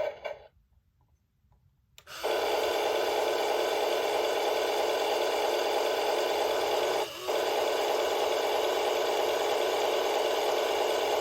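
Battery-powered Toy State Road Rippers Rumble Farm Tractor toy running with a steady buzzing rumble. It cuts out for about a second and a half near the start, then runs on with one very brief break about seven seconds in.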